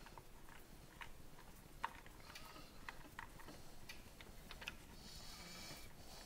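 Faint, irregular metallic clicks and a brief scrape a little after five seconds: a hex key and screw being worked to fasten the inner handle of a hitch lock.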